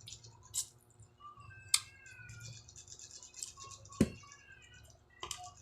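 Eating sounds from a meal of fried dried fish: a few sharp clicks and crunches, the loudest about four seconds in, with a faint wavering high-pitched tone in between.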